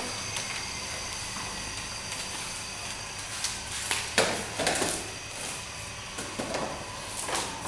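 Bamboo knocking a few times, around four seconds in and again near the end, as a bamboo roof panel is handled and set onto a bamboo frame, over a steady room hiss.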